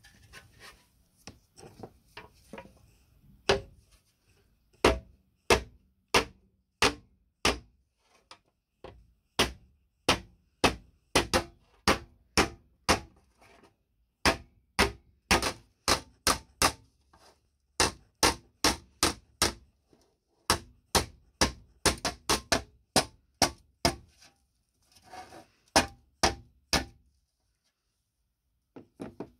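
Hammer blows on a rusty sheet-metal part of a hand-held seed drill laid over a small steel anvil, straightening and shaping the metal. The blows come at about two a second, light taps at first and then firm strikes, with a couple of short pauses, stopping a little before the end.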